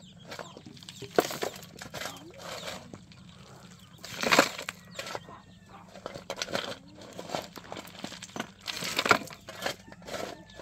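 Steel shovel scraping and digging into loose stone rubble and tipping broken stones into a wheelbarrow: irregular crunches and clatters, loudest about four seconds in and again near nine seconds.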